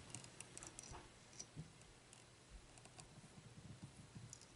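Near silence, with faint scattered small clicks and light handling noise from hands working a clump of deer hair and a thin metal tool at a fly-tying vise.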